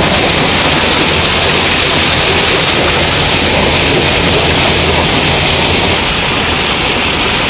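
Artificial rock waterfall splashing steadily, a continuous rush of falling water with a low hum beneath it.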